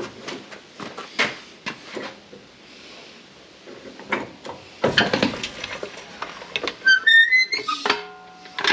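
Background music with scattered clicks and knocks. A quick rising run of notes comes about 7 seconds in, then a held chord near the end.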